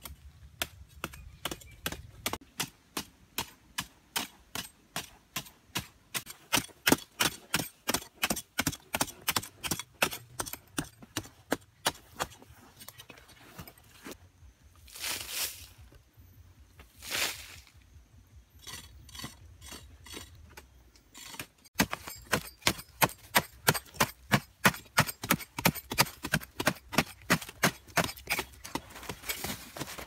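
Long digging bars striking hard, stony dry soil again and again, two or three sharp blows a second, as two people break up ground by hand. Two short rushing noises come about halfway through, and the strikes resume after a cut.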